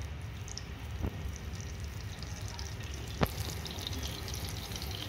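Hot oil sizzling with a light, steady crackle in a frying pan as spice-marinated bitter gourd slices are laid in, with a faint tap about a second in and a sharp click a little past three seconds in.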